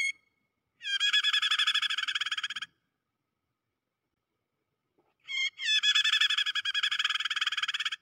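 Prinia (prenjak) giving harsh, rapid chattering distress calls, the call of a trapped prenjak used as a lure. Short notes open it, then two long bursts of fast chattering about two seconds each, the second starting about five seconds in.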